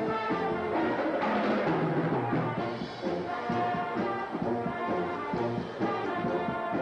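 Brass band playing: held brass chords over moving low bass notes, with a swell of percussion about a second in.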